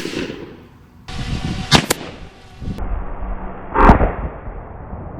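Gunshots from a .357 Magnum fired into a stack of laptops: a sharp report a little under 2 s in and a louder one just before 4 s in, each followed by a short echo.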